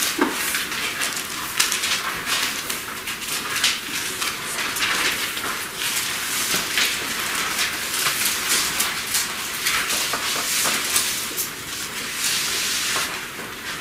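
Pages of a Bible being leafed through at a lectern: a dense, steady crackling rustle of paper.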